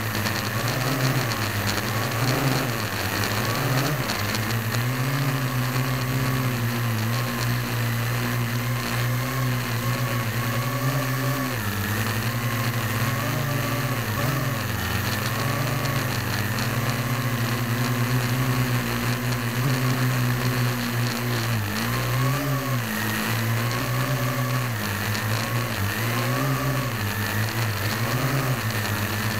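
Parrot AR.Drone 1.0 quadcopter's four motors and propellers whirring in flight, heard close up from a camera mounted on the drone itself. The pitch keeps rising and falling a little as the motors change speed to hold and steer the drone.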